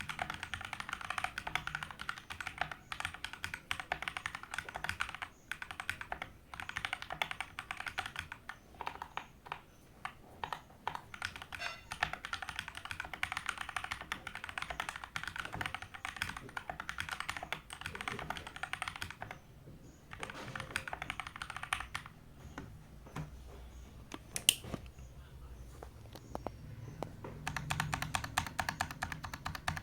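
Modded Keychron K4 V2 mechanical keyboard being typed on in fast runs of key clicks, broken by short pauses, with one lone, sharper click during a pause about three-quarters of the way through.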